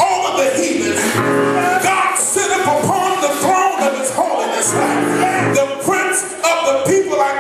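Gospel praise music: singing over instrumental accompaniment.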